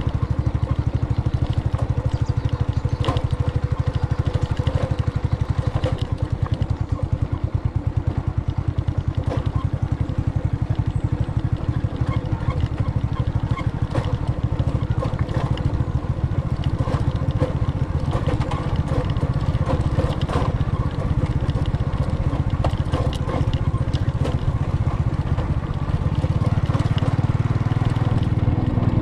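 Vehicle engine running under way, with frequent knocks and rattles over it; the engine gets louder a few seconds before the end.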